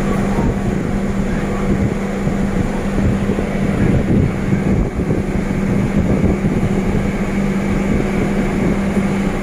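Steady drone of the passenger ship KM Dorolonda under way: a constant low engine hum over a rushing noise, with wind buffeting the microphone.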